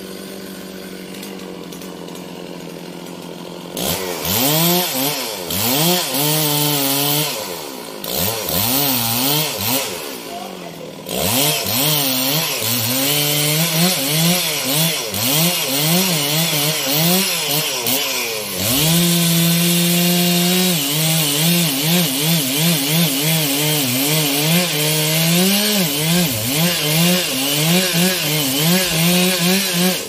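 Large two-stroke chainsaw idling steadily, then revved hard from about four seconds in. It then runs at high revs with its pitch repeatedly sagging and recovering as the chain bites into trembesi wood, easing off briefly before settling into a long continuous cut.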